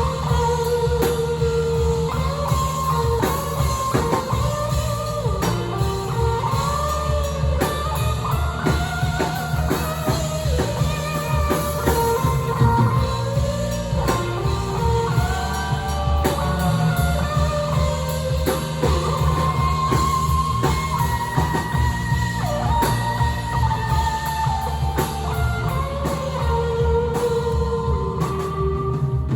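Rock band playing live: a lead guitar melody with bends over bass guitar and drum kit.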